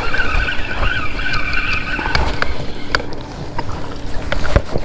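Baitcasting reel cranked fast while fighting a hooked bass, a steady whirring whine for the first couple of seconds, over wind buffeting the microphone. Then scattered clicks and a splash near the end as the bass jumps at the surface.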